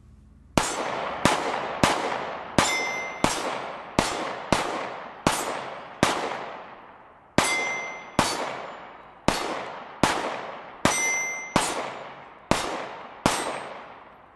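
A Sphinx SDP Compact Duty 9mm pistol fired in a steady string of about eighteen shots, roughly one and a half a second, with one short pause partway through. Each shot echoes and fades, and a short ringing tone follows three of them.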